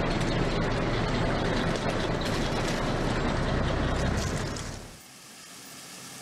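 Screw auger of a fishmeal plant turning through a hopper of crushed fish: a dense mechanical rumble with crackling and clicking. It fades out about four and a half seconds in, leaving a quieter steady wash of water from a shrimp-pond paddlewheel aerator.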